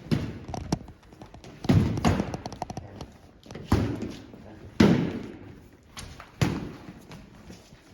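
A run of heavy thuds and slaps, about six in all at irregular spacing, each with a short ring-out: sparring weapons striking shields or bodies.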